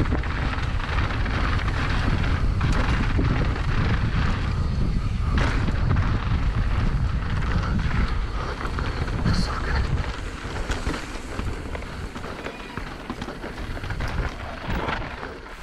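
Wind buffeting the microphone and mountain-bike tyres running over a dirt jump trail, with the bike clattering now and then over bumps. It grows quieter from about ten seconds in as the bike slows.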